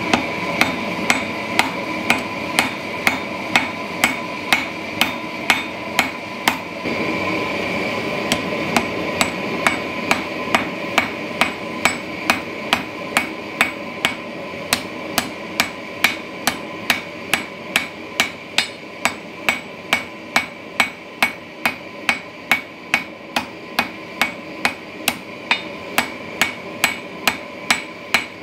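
Hand hammer striking a red-hot Damascus steel billet on an anvil, about two blows a second, each blow followed by the anvil's ring, with a short pause about seven seconds in. The billet is being hammered down to reduce its thickness.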